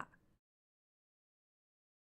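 Complete silence, after the last word of a woman's narration trails off at the very start.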